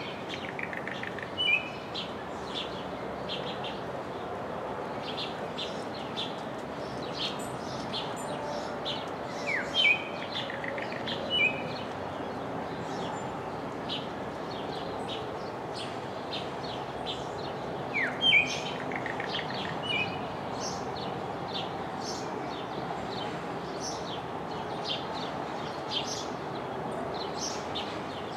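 Blue mockingbird singing loud short whistled phrases, paired and repeated about every nine seconds, with fainter high chirps between them over a steady background hiss.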